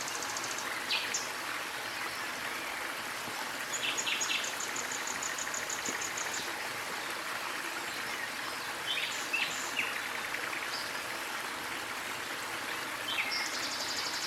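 A small waterfall's water running steadily, with birds calling over it: scattered short chirps and a rapid high trill about four seconds in, and another trill starting near the end.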